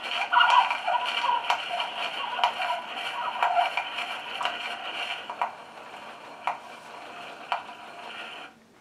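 Kit-built Edison-style tinfoil phonograph playing back its tinfoil recording through a paper-cone horn: a scratchy, tinny sound carrying faint words, with a sharp click about once a second. It grows fainter after about five seconds and stops shortly before the end.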